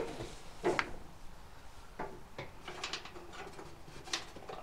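Scattered light clicks and taps of hands handling wiring and connectors inside a torpedo heater's metal housing. The loudest click comes under a second in, with a quick run of small clicks a little after the middle.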